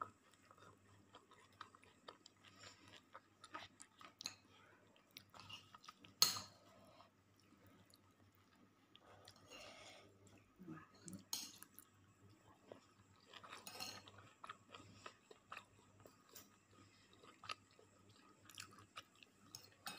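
Quiet chewing and eating sounds, with a few sharp clicks of a metal spoon against a china plate; the loudest click comes about six seconds in.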